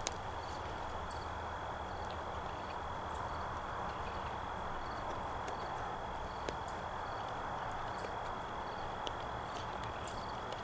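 A pheasant being skinned by hand: feathers and skin rustling and peeling from the breast, with a few faint clicks, over a steady hiss.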